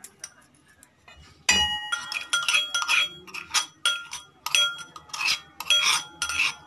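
A steel spoon strikes and scrapes against metal bowls in a run of ringing clinks, two to three a second, as crushed garlic-chilli paste is knocked out of a small bowl into a steel mixing bowl. The first strike, about a second and a half in, is the loudest.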